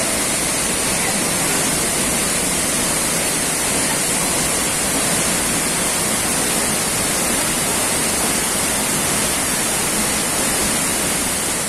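Waterfall pouring into a plunge pool: a loud, steady rush of falling water.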